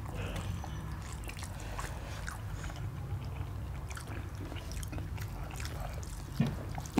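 Eating by hand: chewing, and small wet clicks of fingers mixing rice and mutton curry on steel plates, over a low steady hum. A short dull thump about six and a half seconds in.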